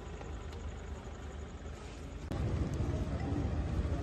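Steady background noise with a strong low rumble, jumping abruptly to a louder level about two seconds in, as at a cut between two pieces of footage.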